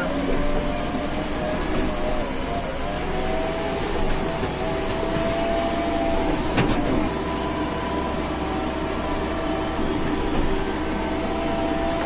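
JCB 3DX backhoe loader's diesel engine running steadily as the machine drives, heard from inside the cab. One sharp clack about six and a half seconds in.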